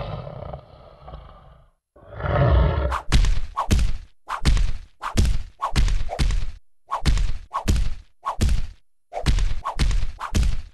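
A cat and a dog scuffling: a drawn-out animal cry at the start, then a rapid series of about a dozen short, sharp sounds, roughly two a second, as they swat and lunge at each other.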